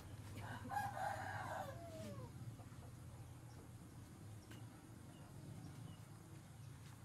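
A rooster crows once, starting about half a second in and ending in a falling note a little after two seconds.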